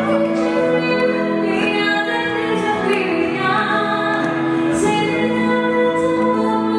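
A female vocalist singing live into a microphone, with steady instrumental accompaniment underneath.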